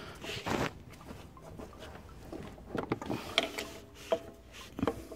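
A few short knocks, clicks and rubs of parts being handled as a new engine thermostat is pushed and seated straight down into its housing by gloved hands.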